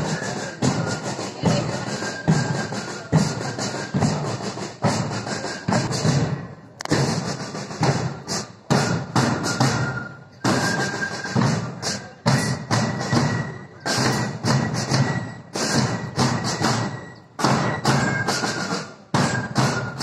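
School band drums playing a steady marching beat: deep bass-drum thumps with sharper drum strokes between them, and faint high notes over them at times.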